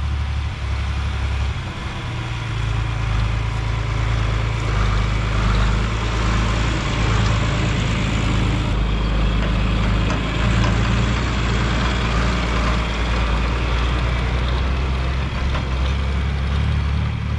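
Heavy farm-machinery engine running steadily, its sound sitting low with a deep even drone.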